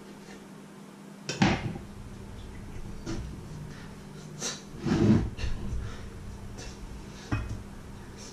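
A kitchen knife and a wooden cutting board handled on a wooden worktop: a few knocks and scrapes, loudest about a second and a half in and again around five seconds, with another knock near the end. A faint steady hum runs underneath.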